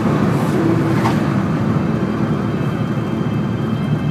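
Car engine and road noise heard from inside the cabin while driving at a steady speed: a continuous low rumble.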